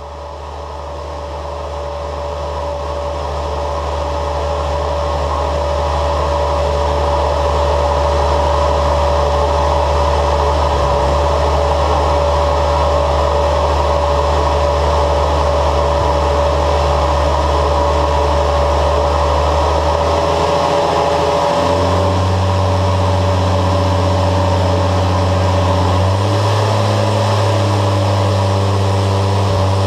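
Lycoming AEIO-540-EXP six-cylinder, horizontally opposed aircraft engine running on a dynamometer with no propeller, fading in over the first few seconds. It holds a steady speed, then steps up in speed twice in the second half.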